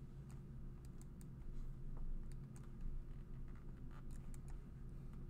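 Irregular light clicks and key taps from a computer mouse and keyboard, over a low steady hum.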